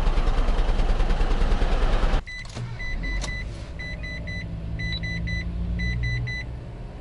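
Exhaust of a Mitsubishi Pajero Mini's small turbocharged engine running at idle, heard close at the tailpipe. The owner suspects an idle fault in the idle air control valve or mass airflow sensor. About two seconds in it cuts to the quieter engine hum inside the cabin, where a dashboard chime beeps in quick sets of three, about once a second.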